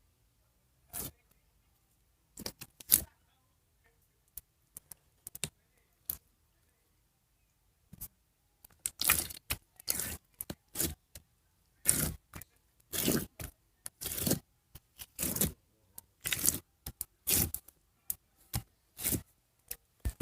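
Repeated short scraping sounds, a few scattered at first, then coming about once or twice a second from about nine seconds in.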